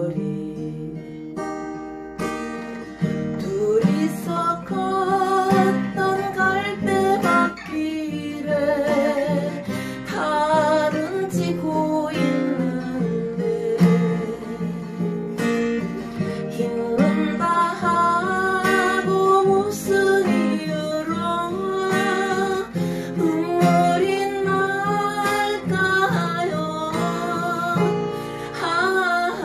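Acoustic guitar strumming chords through an instrumental passage of a Korean ballad, with a wavering melody line carried over it.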